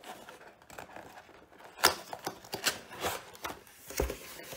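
A cardboard box being opened by hand: scattered scrapes and taps of cardboard, a sharp snap a little under two seconds in, more small clicks after it, and a soft thump near the end.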